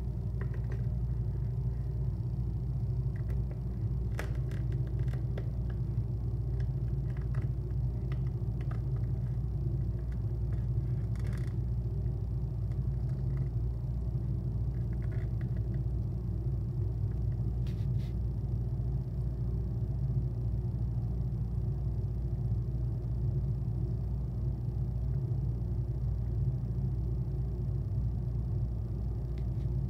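Steady low mechanical hum that holds level throughout, with a few faint soft clicks scattered through it.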